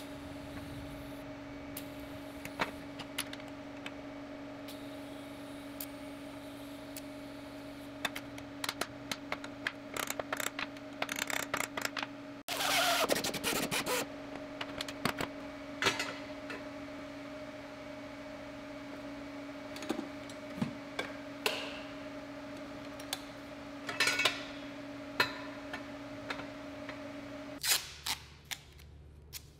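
Scattered clicks and knocks of metal parts being handled over a steady two-pitch hum. There is a denser, noisier patch of handling about halfway through, and the hum stops near the end.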